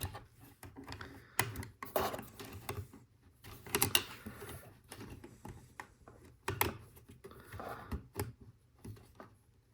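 Plastic Lego Technic pieces clicking and rattling as they are handled and pressed together, in irregular small clicks and knocks.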